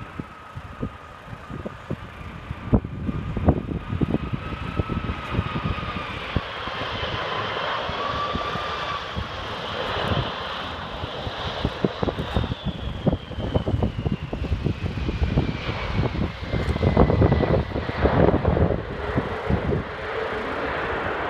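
Boeing 747 jet engines whining and rumbling as the airliner comes in to land, the whine dropping in pitch as it passes by. The engine noise grows louder in the second half as the jet reaches the runway.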